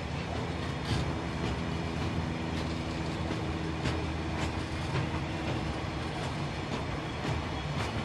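Open freight wagons of a long train rolling slowly past: a steady rumble with irregular sharp wheel clicks over the rail joints, about one or two a second.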